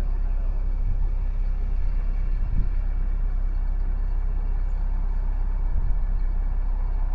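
Steady low rumble of a car driving along a road, heard inside the cabin, with two small knocks from bumps in the road.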